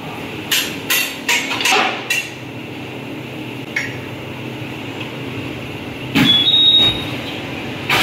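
A run of sharp knocks and clanks in quick succession, one more a couple of seconds later, then a louder burst with a brief high-pitched squeal near the end, over a steady hum.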